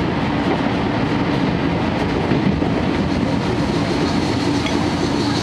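Steady running noise inside a 12-series passenger coach at speed: wheels rumbling over the rails, with the steady hum of the coach's underfloor diesel generator engine.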